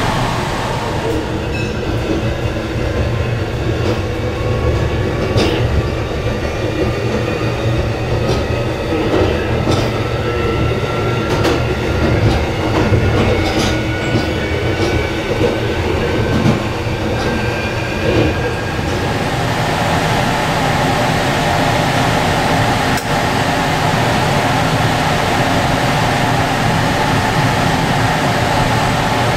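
Electric commuter train running, heard from inside its front cab: steady wheel-and-rail noise with scattered clicks over rail joints. A faint whine rises slowly in pitch for about the first eighteen seconds, then the running noise turns steadier.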